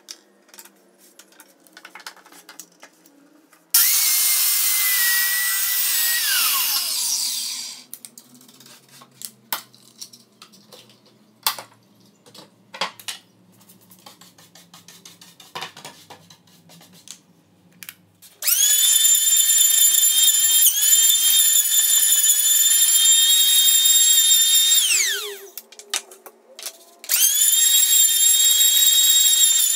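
A circular saw runs briefly, cutting a pine strip, and winds down. After some knocks and handling, an electric hand planer runs with a steady high whine over a pine panel for about seven seconds, winds down, and starts again near the end.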